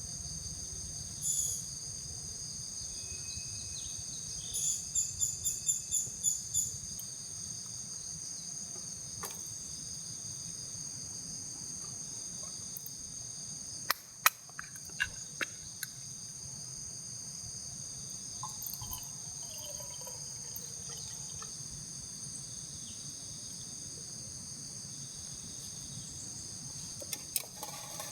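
Steady shrill chorus of summer insects, with several high tones held without a break. About five seconds in, a quick run of about eight sharp high chirps sounds. A few sharp clicks or knocks come around the middle and near the end.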